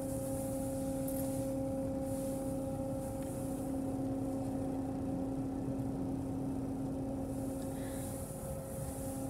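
D&S Odyssey soft-touch car wash heard from inside the car: the top brush's cloth scrubbing across the windshield in the wash water, with a hiss that swells twice, over a steady hum.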